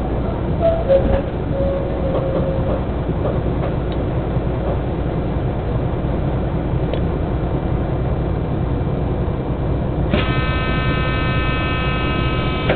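The diesel engine of a standing ČD class 810 railbus idles with a steady low rumble. About ten seconds in, a steady high pitched tone with many overtones begins and holds for roughly two and a half seconds.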